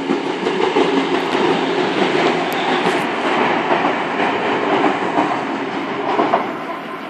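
A diesel long-distance passenger train (an NSW XPT or Xplorer) passing through the station without stopping: a steady rumble of wheels on rail with a few sharp clicks in the first few seconds, fading away near the end.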